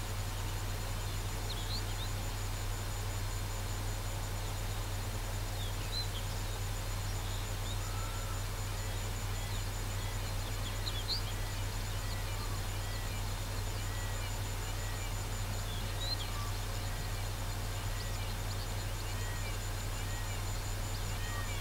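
Birds calling in the open: short upswept chirps and a run of repeated arching notes in the second half, over a steady low hum and hiss. A faint high pulsing tone runs steadily underneath.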